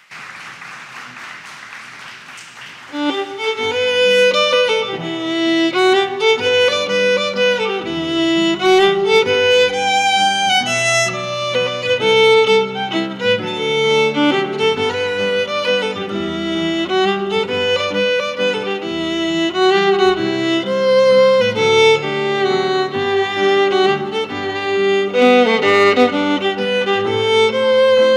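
Applause for about the first three seconds, then a solo fiddle starts a tune, bowed with quick changes of note, with low sustained notes under it.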